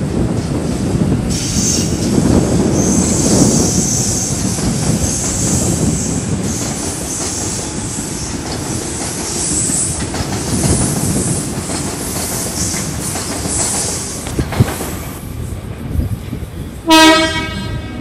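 Sydney Trains double-deck electric trains running through the station, wheels rumbling over the tracks with a high squeal from the wheels for much of the time. Near the end, a short blast of a train horn.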